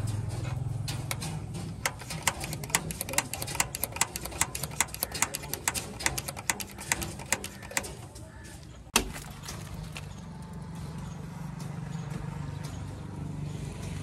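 Rapid, regular clicking, about two to three clicks a second for the first eight seconds, from the hand primer on the fuel lift pump of a JCB 3DX backhoe's diesel engine being pumped, then one sharp click about nine seconds in as the knurled primer knob is screwed back down. A low steady hum runs underneath.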